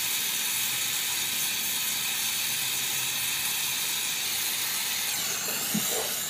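Oxy-hydrogen gas welding torch flame hissing steadily while it melts a bead into a fluxed magnesium sheet; the hiss eases about five seconds in.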